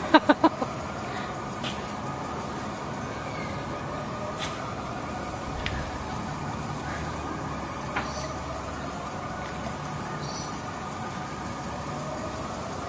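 Steady outdoor background hiss, with a high-pitched buzz pulsing on and off a little more than once a second, and a brief voice at the very start.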